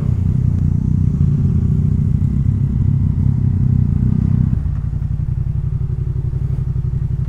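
Motorcycle engine running with a fast, even pulse, heard on the rider's helmet microphone. About four and a half seconds in the engine note drops a little.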